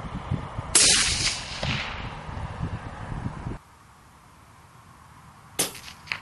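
A rifle shot about a second in, its report ringing on for about a second as it dies away. Near the end comes a second, fainter sharp crack, followed shortly by a small knock.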